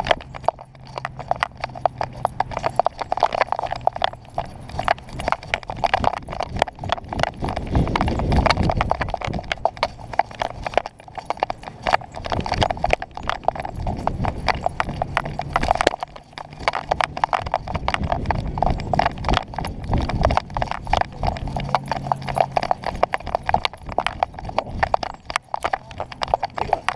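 An action camera strapped to a moving dog knocks and rattles rapidly in its mount, while gusts of wind rumble on the microphone.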